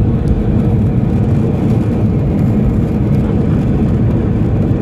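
Airbus A321 on its landing roll-out, heard from inside the cabin: a steady, loud rumble of engine and runway noise.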